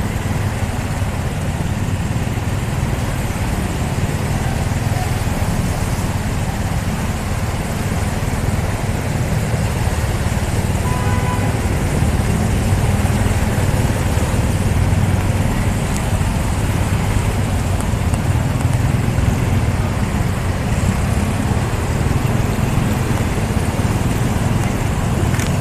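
A motor vehicle driving through deep floodwater: a steady low engine rumble mixed with water churning and splashing around it.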